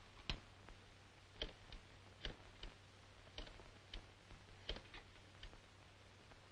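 Near silence on an old film soundtrack: a steady low hum with faint, irregularly spaced clicks, about two a second.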